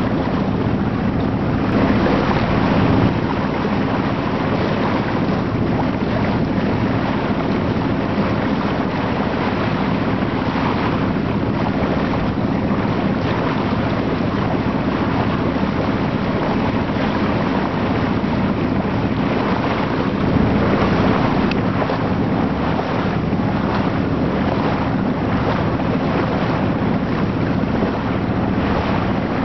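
Steady sound of a boat under way: wind buffeting the microphone and water rushing past the hull, over a low steady hum from the boat.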